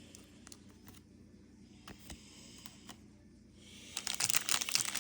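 Trading-card pack handling: a few faint clicks of cards being handled, then, about four seconds in, the crinkling of a foil card-pack wrapper.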